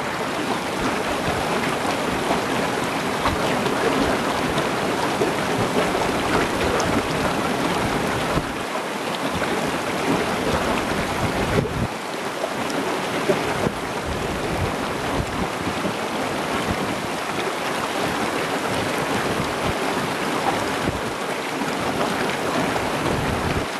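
River flowing: a steady rush of running water.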